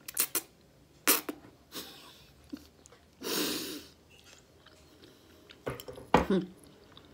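Close-up mouth sounds of a person eating pasta with sausage and chicken: chewing and lip smacks, with a few short sharp clicks and a half-second rushing noise about three seconds in.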